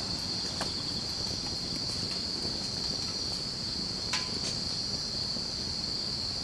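Crickets chirring in a steady high-pitched drone, with a few faint snaps, the loudest about four seconds in.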